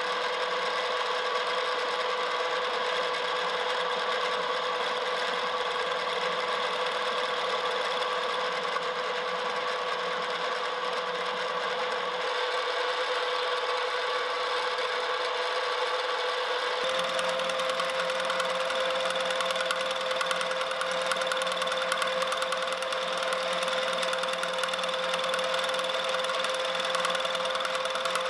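Milling machine running, its end mill cutting a spiral groove in a shaft, with a steady motor whine. The pitch steps up slightly about seventeen seconds in.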